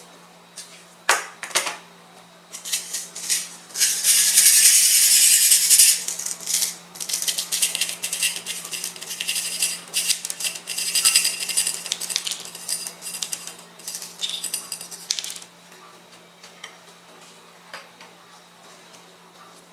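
Metal spatulas scraping and tapping on an ice cream roll cold plate, in a run of clicks and scrapes with one long, loud scrape about four seconds in, over a steady low hum.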